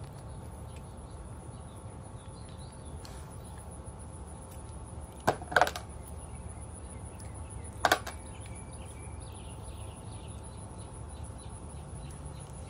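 Steady insect drone, high and even, over a low hum. About five seconds in, two short sharp sounds come close together, and a third follows about two seconds later.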